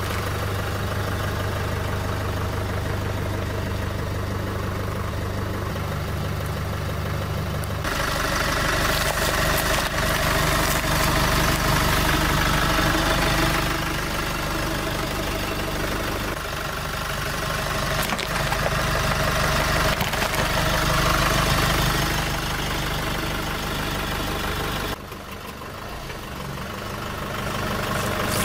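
Pickup truck engine idling and running slowly close by, a steady low hum whose tone and loudness shift abruptly several times where clips are cut together.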